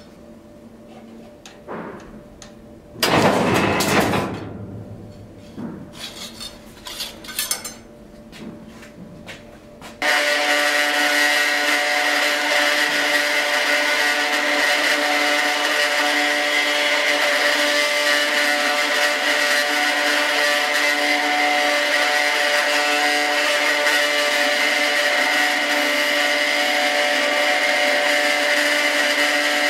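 A hand-operated sheet-metal shear cuts with one loud clunk about three seconds in, followed by a few lighter knocks. From about ten seconds a belt grinder runs with a steady, high, multi-toned whine while a small metal piece is ground on its small-wheel attachment, throwing sparks.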